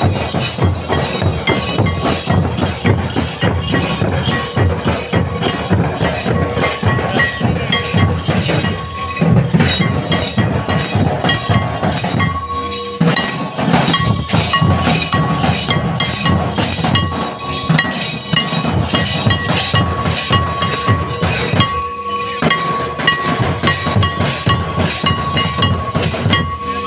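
Folk dance band's percussion: drums beaten with sticks under a constant clinking of small hand-held metal cymbals, in a fast, dense rhythm. A steady high note runs through it, strongest in the second half.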